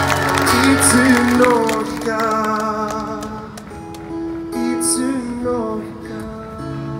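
Live band music played through an outdoor PA, with a singer over the full band. After about two seconds it falls back to quieter acoustic guitar picking with sustained notes.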